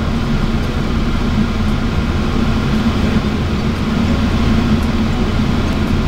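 Car engine idling steadily, heard from inside the parked car's cabin as a low, even hum.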